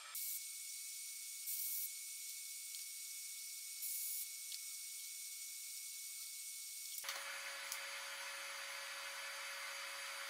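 Steady high-pitched hiss with three short, louder bursts of hiss in the first half; the background changes abruptly about seven seconds in.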